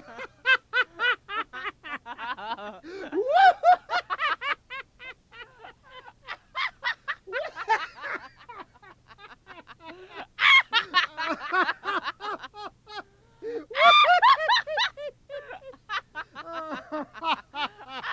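Laughter: rolls of rapid pitched ha-ha bursts that swell and ease off, with a brief pause about thirteen seconds in.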